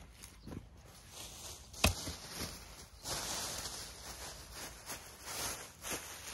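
Small hand trowel scraping loose soil, with one sharp knock about two seconds in, then black plastic mulch sheet crinkling and rustling as a gloved hand pulls it back over the soil.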